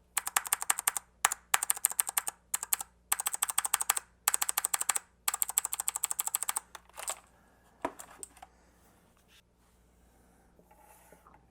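Clicky blue mechanical keyboard switches (RK Blue, on a Royal Kludge G87) being pressed in rapid bursts of typing for about seven seconds, then a few single key clicks.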